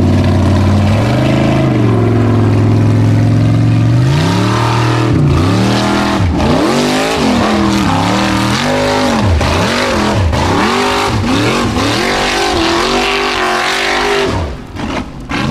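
Formula Offroad buggy's engine running at high revs, then revving up and down rapidly, about once a second, as it claws up a steep dirt hill with its wheels spinning.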